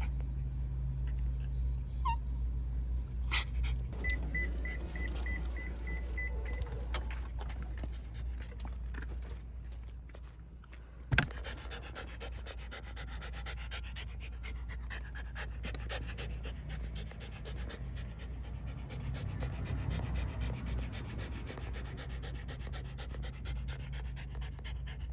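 Shiba Inu panting steadily with its tongue out, over a steady low hum. A run of short, evenly spaced beeps sounds about four seconds in, and a single sharp knock about eleven seconds in is the loudest moment.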